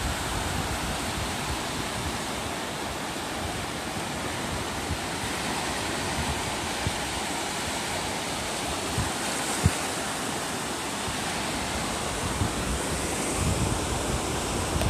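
Surf breaking and washing up a sandy beach: a steady hiss of small waves. Low rumbles of wind on the microphone come in near the end, and there is a single short click about two-thirds of the way through.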